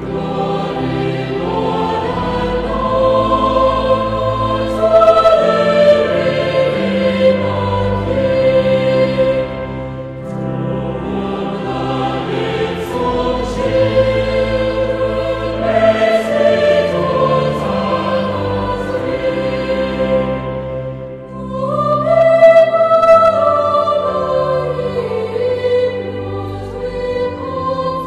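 Choir singing sacred music in long sustained phrases, with short breaks about ten and twenty-one seconds in.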